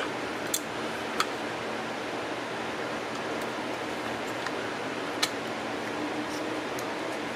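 Steady hiss of background noise with a few light clicks as the Singer sewing machine motor's housing is handled and turned in the hands.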